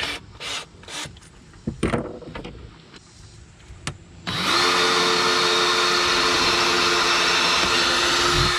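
Power drill running at a steady speed for about four seconds, starting a little before halfway and stopping just before the end. A few sharp handling knocks come before it.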